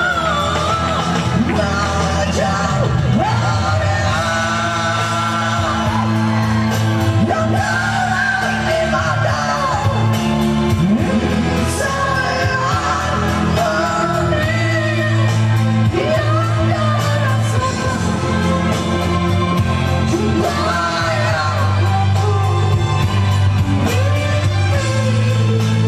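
A man singing into a handheld microphone over musical accompaniment, the voice amplified.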